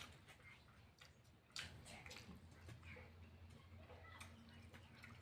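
Faint chewing and wet mouth clicks of someone eating rice with their meal, a few soft smacks spread through, over a low steady hum.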